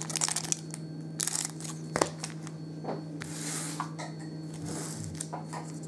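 Foil trading-card packs rustling and tearing as they are handled and opened, in a series of short crackly rustles with a sharp click about two seconds in.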